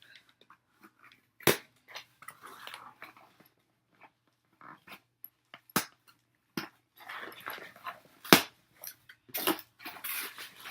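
A cardboard shipping box being forced open by hand: several sharp cracks and snaps of the flaps and tape, with scraping and rustling of cardboard between them.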